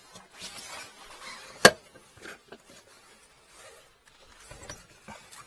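Handling noise from hands in work gloves and a padded jacket working among heating pipes: rustling and small knocks, with one sharp knock about a second and a half in as the loudest sound.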